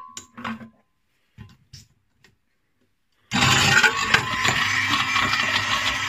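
Countertop blender with a glass jar switched on suddenly about halfway through, its motor running loud and steady as the blades chop hard HDPE plastic scraps (milk-bottle and bottle-top pieces) clattering inside the jar. A few short knocks come before it starts.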